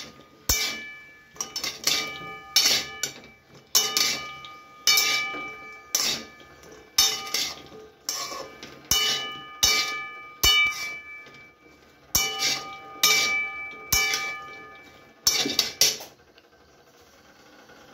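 Metal spatula stirring cubed pumpkin in a metal kadai, clanking against the pan about one and a half times a second, with a short metallic ring after each strike. The stirring stops a couple of seconds before the end.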